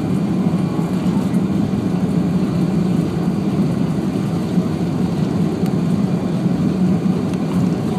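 Steady engine and airframe noise inside the cabin of an Airbus A340-600 during its takeoff roll, its four Rolls-Royce Trent 500 engines at takeoff thrust.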